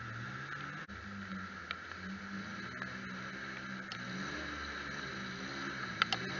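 Ford 250 cross-flow straight-six of a 1976 Ford F-250 revving up and down repeatedly as the truck circles in the mud. A few sharp clicks near the end.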